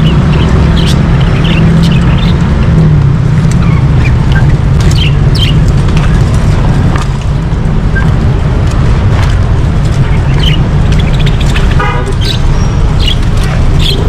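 Steady low rumble of street traffic, with scattered high chirps from caged birds. A short rapid series of notes comes near the end.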